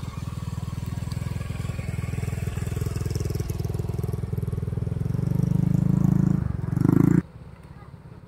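A small engine running steadily, growing louder for a couple of seconds, then cutting off suddenly about seven seconds in.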